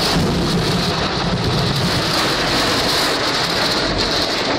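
Torrential rain coming down on a car, heard from inside the car as a loud, steady hiss and patter.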